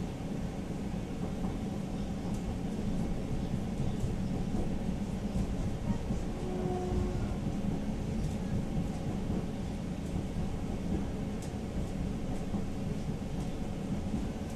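Interior running noise of a Tatra-Yug K1 low-floor tram under way: a steady low rumble from the wheels on the rails and the running gear, with a few faint clicks. A short faint whine sounds about six and a half seconds in.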